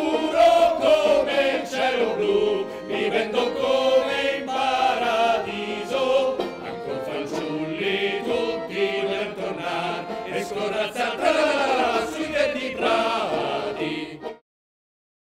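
A group of men singing a song together in chorus, with a strummed guitar, ending abruptly near the end.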